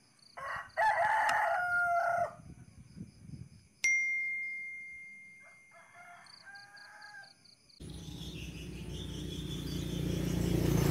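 A rooster crowing, then a sharp click with a ringing ding that fades over about two seconds, and a shorter second call. About eight seconds in, an outdoor background with a low rumble comes in and grows louder.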